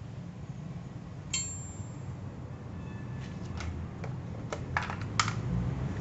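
Metal parts of a homemade drill-press stand being handled: one ringing metallic ping about a second in, then a handful of sharp clicks and taps, over a steady low background rumble. The drill motor is not running.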